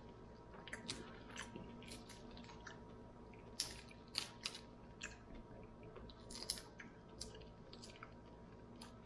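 Shells of whole cooked shrimp cracking and crackling as they are peeled by hand: faint, irregular sharp clicks and snaps.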